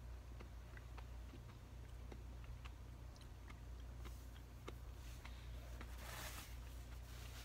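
Faint eating sounds: scattered small clicks from chewing a mouthful of vegetable stir-fry, over a steady low hum. A brief rustle comes about six seconds in.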